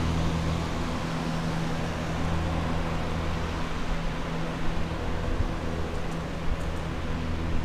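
Water-damage drying equipment, air movers and dehumidifiers, running steadily: an even fan rush over a low hum.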